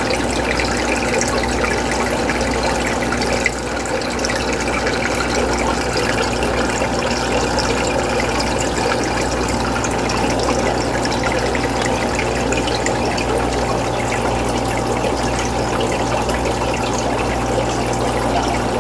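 Aquarium water circulating: a steady trickling, bubbling rush of water over a low, constant hum from the tank's running equipment.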